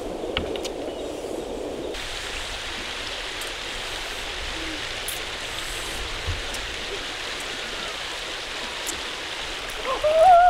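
Steady rushing of a shallow stream over rocks. Near the end a single loud call rises and then falls over about a second.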